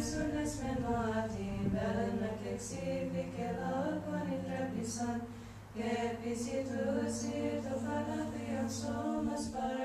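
Unaccompanied choir singing Greek Orthodox chant: long held vocal lines moving slowly in pitch over a steady low drone. The drone stops about nine seconds in.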